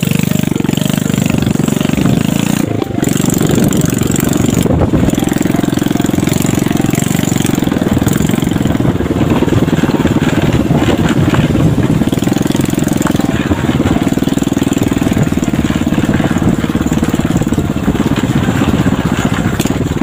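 Honda Supra underbone motorcycle's single-cylinder four-stroke engine running steadily while riding along a lane.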